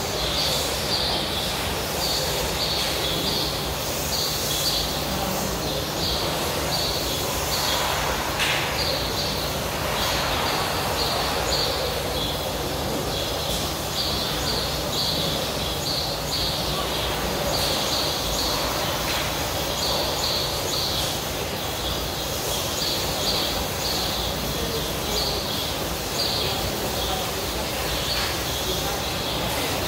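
Outdoor ambience with a small bird chirping over and over, short high chirps about once or twice a second, over a steady low hum and background noise.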